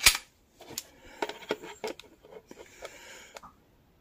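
Taurus G2S pistol's slide being worked to re-cock the striker, a sharp metallic click right at the start, followed by a run of small clicks and handling as a digital trigger pull gauge is hooked onto the trigger.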